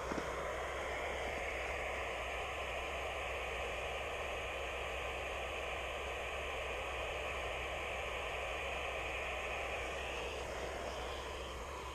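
FM radio receiver static: a steady hiss with a click as it comes on, and no voice coming through. The hiss thins about ten and a half seconds in.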